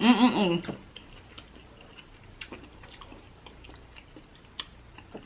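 A short voiced sound at the very start, then sparse soft clicks and smacks of someone eating seafood boil: chewing and handling saucy shellfish.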